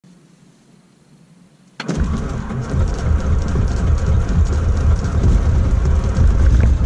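A Cessna 182's piston engine starting: the cabin is quiet, then about two seconds in the engine fires suddenly and keeps running with a deep, steady rumble, heard from inside the cockpit.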